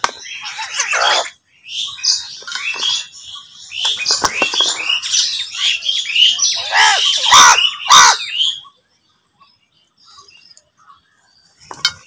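A flock of house crows cawing as they squabble over food, many calls overlapping for about eight seconds, then falling quiet apart from one more caw near the end.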